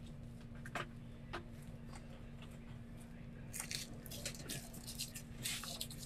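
Faint scattered clicks and light rustling from small handling noises, a cluster of them about two thirds of the way in, over a steady low hum.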